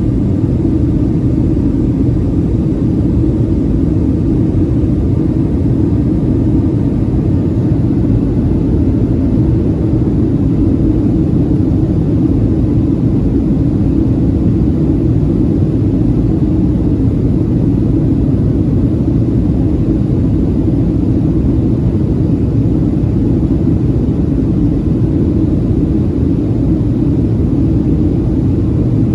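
Steady cabin drone of a Boeing 737-700 in flight, heard from inside the cabin: the CFM56-7B turbofans and the airflow over the fuselage make one unbroken low rumble with a hum in it.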